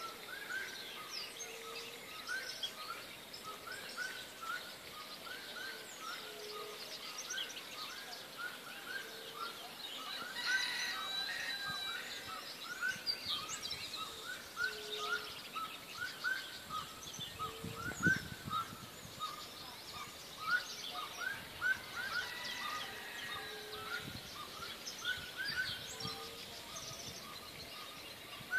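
Dawn chorus of many birds, with dense, repeated short chirps throughout. A lower short note recurs every two to three seconds. A single low thud comes a little past the middle.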